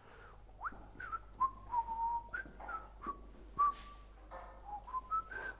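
Someone whistling a short idle tune: a string of held notes and quick slides up and down, with a few soft clicks in between.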